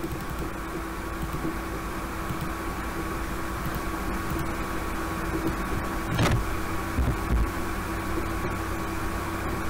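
Steady machine hum and hiss, like a computer fan or room noise picked up by the microphone, with a single sharp knock about six seconds in and a few low thumps about a second later.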